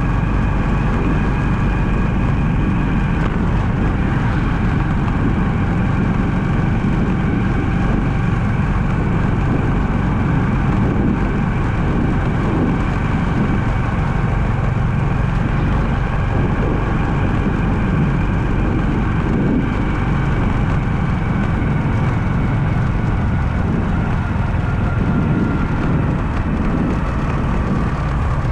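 A car driving, recorded from the dash inside the cabin: a steady low rumble of engine and road noise, with a thin steady whine above it.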